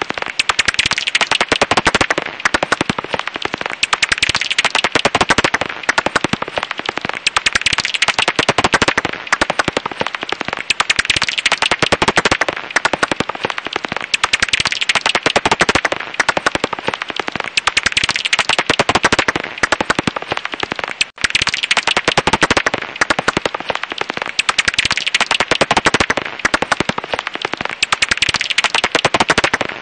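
Japanese house bat (Pipistrellus abramus) echolocation calls made audible as a dense, rapid crackle of clicks that swells and fades in waves, with a brief drop about two-thirds of the way through.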